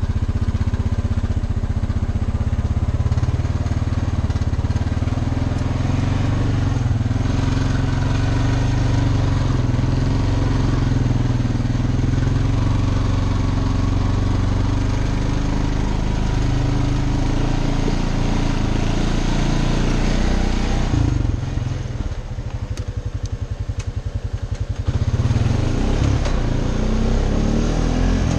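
A Honda four-wheeler's single-cylinder engine running steadily as the ATV rides along a dirt trail. Near the end the engine eases off for a few seconds, then picks up again.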